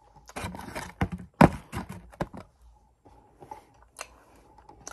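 Rustling and scraping handling noises close to the microphone, busiest in the first two seconds, with a sharp knock about a second and a half in and a few light clicks later.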